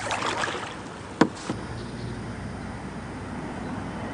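Kayak paddling: a short patter of water splashing off the paddle, then a sharp knock a little over a second in and a lighter one just after, like the paddle striking the kayak's hull.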